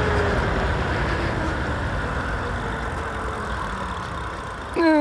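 Wind and road noise from a moving e-bike, a steady rushing rumble that gradually dies down as the bike slows. Near the end a short, sharp high-pitched sound cuts in.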